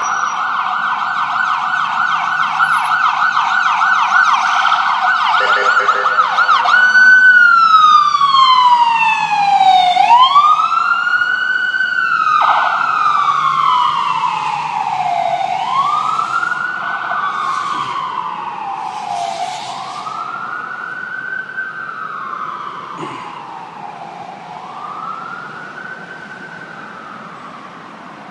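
An emergency vehicle's electronic siren on a passing New York City emergency vehicle, first in a rapid yelp, then switched about seven seconds in to a slow wail rising and falling every few seconds. It is loudest as the vehicle goes by and fades as it moves away.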